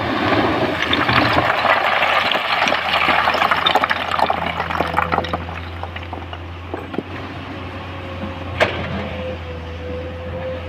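A mass of broken stone pouring and sliding in a rush of rattling for about five seconds, over the steady low running of a diesel engine. Later the engine runs on alone, with one sharp knock about eight and a half seconds in.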